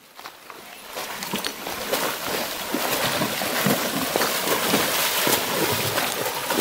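Spotted saddle horse wading through a shallow creek, its legs splashing and sloshing the water in a dense run of splashes that rises from faint over the first second or two.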